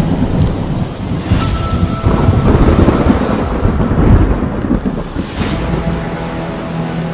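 Floodwater rushing in a fast, muddy torrent: a dense, loud rumble, heaviest in the low end, that swells loudest from about two to four and a half seconds in.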